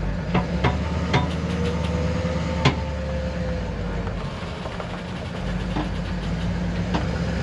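Pickup truck engine running at low speed as it slowly pulls a fifth-wheel trailer, a steady low rumble. A few sharp clicks and knocks sound over it, the loudest about two and a half seconds in.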